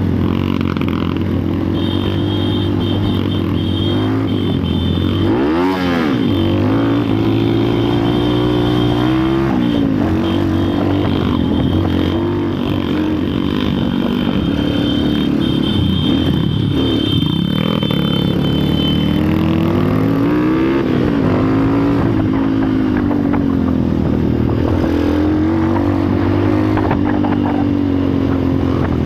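Motor vehicle engine running, its pitch rising and falling several times as it is revved, with a faint steady high whine through the first two-thirds.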